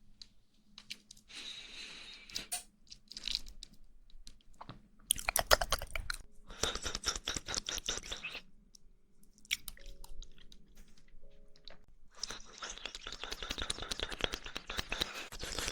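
Close-miked wet mouth sounds of chewing jelly: rapid squelching and clicking that comes in two long bursts, about five seconds in and again from about twelve seconds on, with scattered smacks between.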